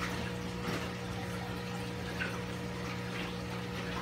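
Aquarium pump or filter running: a steady electric hum with water moving, and a few faint light knocks.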